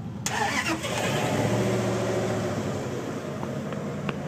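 A motor vehicle's engine running close by, a car or truck moving past, with a swell of engine and road noise a moment after the start.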